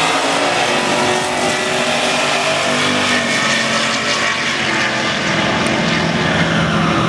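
A Chevrolet Camaro and a Plymouth Belvedere drag racing side by side at full throttle. Their engines pull hard as they run away down the strip, the pitch climbing and then stepping down at gear changes.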